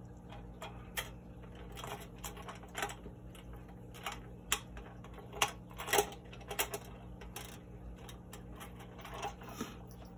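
Small metal hanging chains and hooks clicking and rattling against a GE LED grow-light fixture as they are hooked onto its ends. The clicks are irregular and light, with the loudest about six seconds in.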